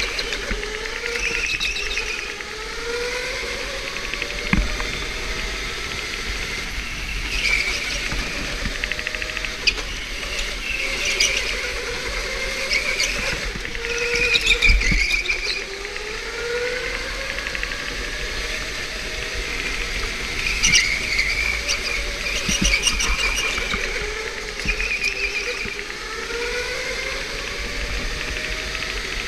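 Electric indoor go-kart running at speed: its motor whine rises in pitch again and again as it accelerates out of each turn, with tyres squealing through the corners.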